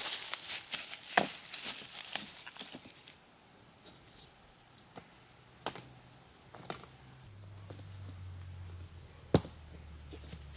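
Sharp knocks, a quick run of them in the first three seconds, then a few single ones, over a steady high insect buzz that comes in after about three seconds.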